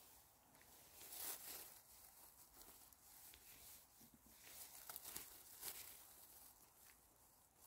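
Faint rustling and crackling of forest-floor litter as mushrooms are picked, with a few short crackles, the first about a second in.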